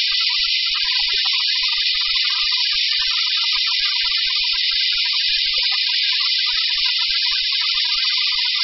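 OMAX waterjet cutting a metal plate through its tilted Bevel-Jet head: the high-pressure jet gives a loud, steady hiss that does not change.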